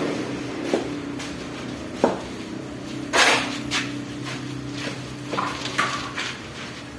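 Masonry work on concrete hollow blocks: scattered clinks, knocks and short scrapes of a trowel and blocks, with one sharp knock about two seconds in and a brief scrape just after three, over a steady low hum.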